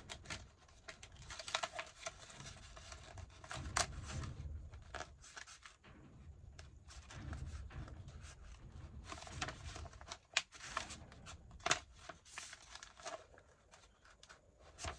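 Paper being handled and torn by hand: uneven rustling and crinkling with sharp clicks and snaps scattered throughout.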